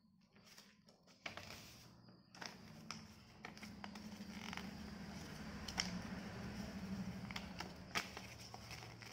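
Paper being folded and creased by hand against a tile floor: rustling and crinkling with a few sharp snaps and taps, the loudest about six and eight seconds in. A low steady hum runs underneath through the middle.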